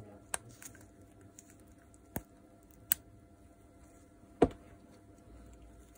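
Circlip pliers working a steel retaining ring out of the bearing bore of an angle grinder's aluminium gear housing: a few small metallic clicks, then one louder knock about four and a half seconds in.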